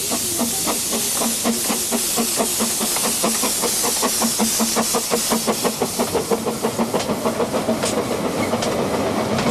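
Small steam locomotive hissing steam and chuffing, its exhaust beats coming rapid and even and growing more distinct toward the end.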